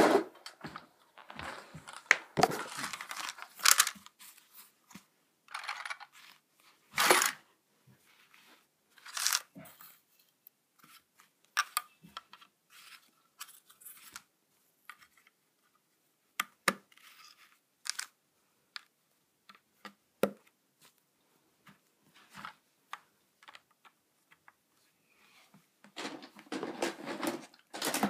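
Plastic Plarail toy track pieces being handled: irregular clicks, knocks and short rustles, busiest near the end.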